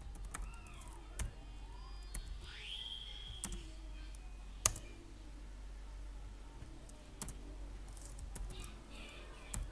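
Computer keyboard being typed on in scattered, separate key clicks, the sharpest about halfway through.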